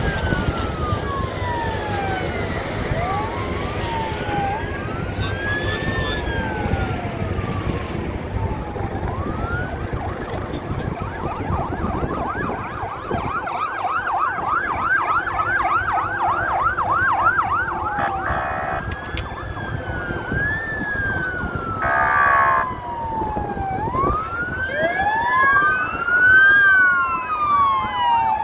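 Several emergency vehicle sirens wailing at once, their rising and falling tones overlapping. From about twelve seconds in, one siren switches to a fast yelp for about five seconds. Two short horn blasts sound near the middle.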